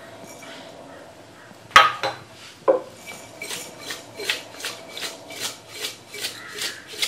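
Cut lemon pieces and rock salt shaken in a glazed ceramic pickle jar to coat the lemons with salt for curing. Two sharp knocks about two seconds in, then a regular rasping swish about three times a second as the contents tumble.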